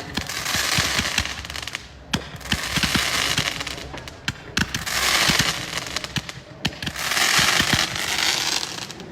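Fireworks going off: four sharp bangs about two to two and a half seconds apart, each followed by a dense crackling fizz that lasts a second or two.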